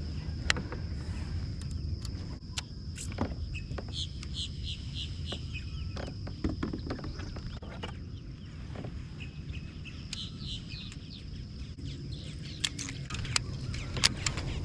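A bird calling in two runs of short repeated chirps, over a steady high insect drone and a low rumble, with scattered sharp clicks.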